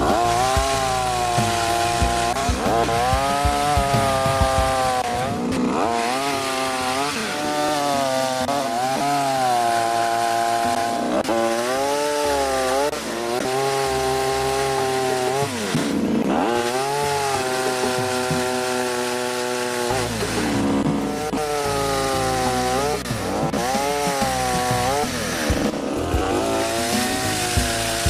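Engine-driven pole pruner chainsaw running and cutting, its engine pitch repeatedly sagging and climbing back up about every five seconds.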